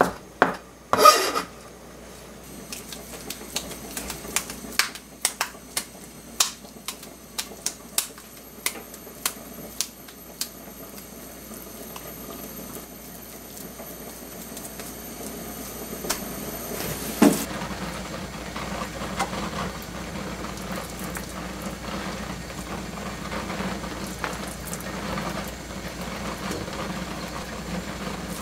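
Cooking at a pan: a run of sharp taps and clinks, like utensils against the pan, for about the first ten seconds. About seventeen seconds in there is a knock, then a steady simmering, sizzling bubble of the pan's contents.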